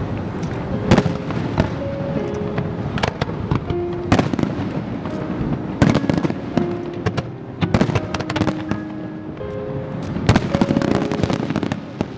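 Fireworks bursting overhead: a rapid, irregular run of sharp bangs and crackles, several a second, with music playing underneath.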